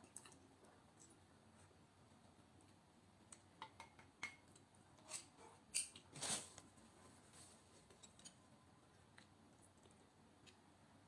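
Faint eating sounds from a person gulping down dumplings with hardly any chewing: a scattered few soft mouth clicks and smacks, the loudest about six seconds in, with near silence between them.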